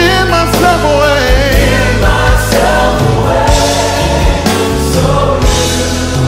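Gospel music: a choir singing over instrumental backing with a steady bass line.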